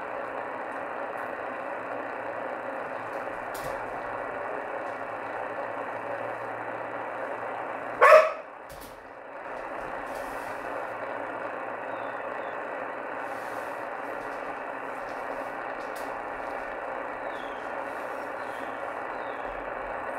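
Shortwave receiver tuned to CB channel 38 on lower sideband, giving a steady hiss of band noise. About eight seconds in, a single sharp, loud crack cuts in, and the hiss dips for a moment after it.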